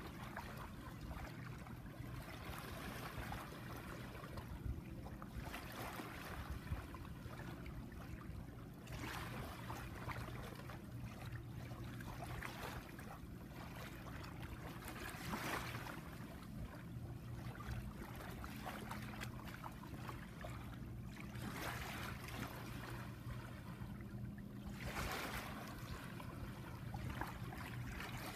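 Shallow tidal water lapping and trickling over sand at the shoreline, the wash swelling and fading every few seconds. A steady low hum runs underneath.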